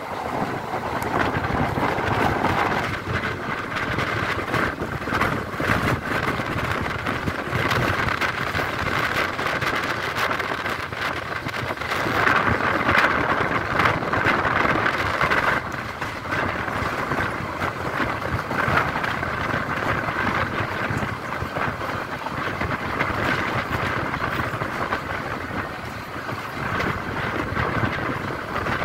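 Passenger train coaches running at speed, heard from a coach window: a steady rush of running noise, louder for a few seconds around the middle, with wind on the microphone.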